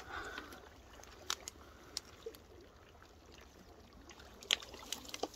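Wading through shallow water and silt among bare branches: faint sloshing and trickling water, with a few sharp twig clicks, the loudest about four and a half seconds in.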